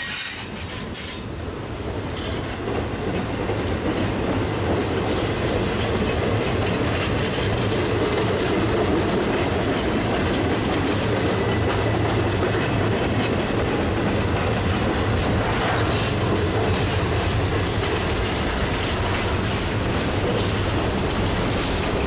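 Freight train rolling past at close range: steel wheels rumbling and clicking over the rail as empty intermodal well cars and then covered hopper cars go by, a steady continuous noise.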